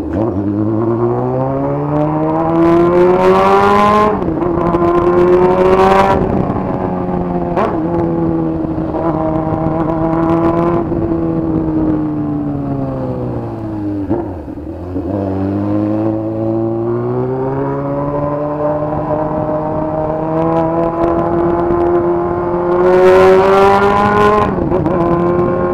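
Honda Hornet's inline-four engine through a 3-inch straight pipe with no muffler, loud, accelerating hard through the gears. The revs climb and dip at upshifts about 4 and 6 seconds in, hold steady for a while, fall as the bike slows around 14 seconds, then climb again through more gears.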